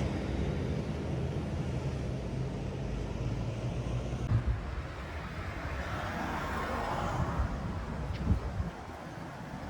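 Steady low rumble of distant motor traffic, swelling briefly about six to seven seconds in as something passes, with a couple of faint knocks.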